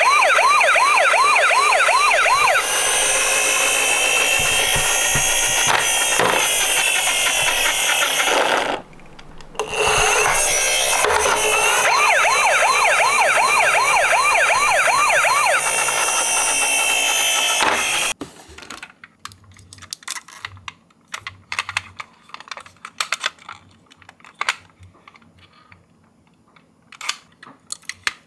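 Emergency-vehicle siren sounds: a rapid yelp, about three sweeps a second, over a dense layer of other siren tones, dropping out briefly partway through. The sirens cut off suddenly about two-thirds of the way in, leaving scattered light clicks and taps.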